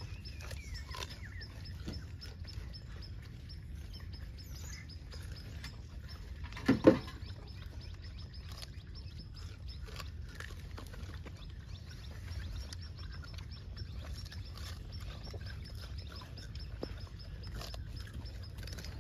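Gray langurs feeding at boxes of fruit: scattered small clicks and rustles of handling, with a brief loud double grunt about seven seconds in. A faint steady high tone runs underneath.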